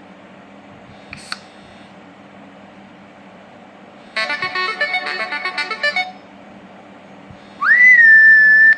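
Nokia 603 ringtones playing through the phone's loudspeaker: a short click about a second in, then about two seconds of a quick many-note tune, then a loud tone that slides up in pitch and holds until it is cut off.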